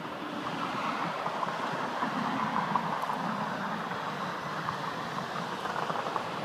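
Distant vehicle rumble with some wind on the microphone, swelling about two to three seconds in and then easing off.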